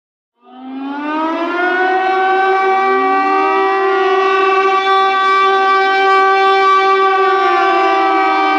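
Air raid siren winding up from silence about half a second in, rising in pitch and then holding a steady wail, with a second tone sliding up to join it about three seconds in.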